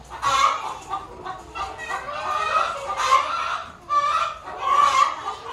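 Chickens clucking close by, calls following one another in quick succession.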